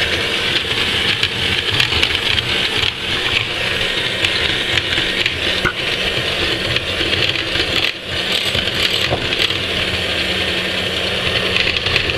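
Moulinex electric hand mixer running steadily, its twin beaters whisking chocolate batter in a glass bowl, with a brief dip in the sound about eight seconds in.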